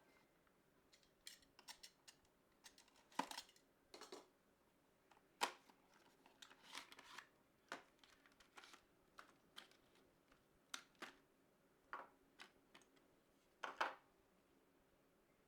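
Small hardware handling sounds from PC parts being fitted: about twenty short, irregularly spaced clicks, taps and scrapes. The loudest come about three, five and a half, and fourteen seconds in.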